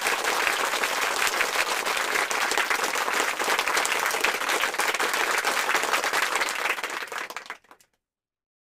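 A crowd applauding with dense, steady clapping that cuts off suddenly near the end.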